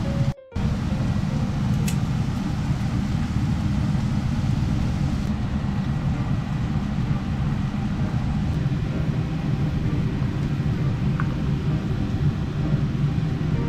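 A steady low rumbling noise with a short dropout about half a second in.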